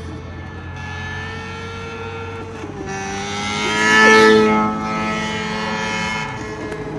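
Synthetic motorbike engine sound from the Revheads phone app, played alongside an electric unicycle as it rides. It holds a steady engine note, revs up to its loudest about four seconds in, then settles back.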